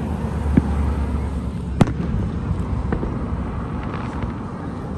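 Fireworks shells bursting at a distance: three sharp bangs, the loudest a little under two seconds in. A car drives past near the end.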